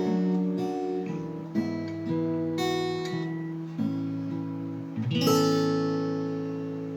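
Acoustic guitar closing a song with a few strummed chords. The last and loudest chord is struck about five seconds in and left to ring out and fade slowly.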